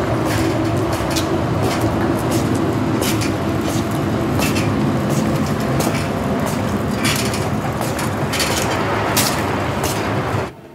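Loaded platform trolley rolling over a concrete floor: a steady rumble from its wheels, with irregular rattles and clacks. It cuts off suddenly near the end.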